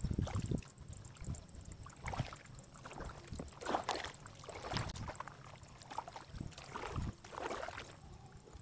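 Paddle strokes splashing in calm water from a small homemade styrofoam kayak, irregular swishes a second or so apart, with a few low knocks against the hull near the start.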